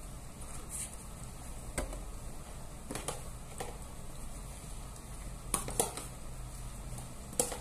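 A spoon tossing salad in a bowl: about half a dozen scattered taps and clicks of the utensil against the bowl, the sharpest in the second half, over a low steady background hum.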